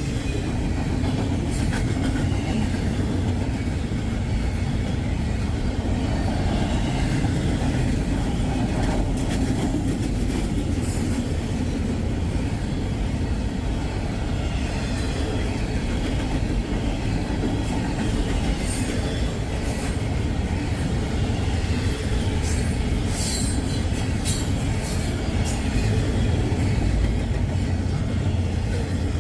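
Norfolk Southern freight train rolling by close, a steady rumble of wheels on rail, with scattered high wheel squeals and clicks through the middle of the passage.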